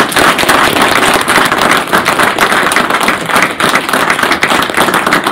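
An audience applauding: many hands clapping, loud and steady.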